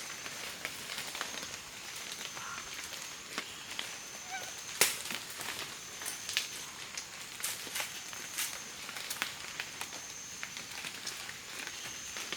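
Wood fire crackling, with irregular sharp pops and one louder pop about five seconds in.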